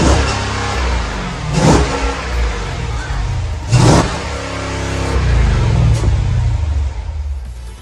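Jeep SRT8's HEMI V8 revved while standing, with two sharp throttle blips about two seconds apart over a steady low idle. After the second blip the revs fall back toward idle.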